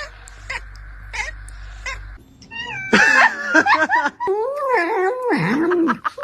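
A cat yowling: a long, drawn-out meow that wavers up and down in pitch, starting about two and a half seconds in, after a few short faint chirps.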